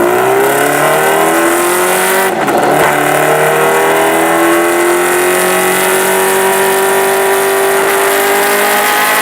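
Kawasaki Ninja H2R's supercharged inline-four exhaust under hard acceleration, the engine note climbing steadily in pitch. About two and a half seconds in the note breaks briefly for a gear change and comes back slightly lower, then climbs slowly again.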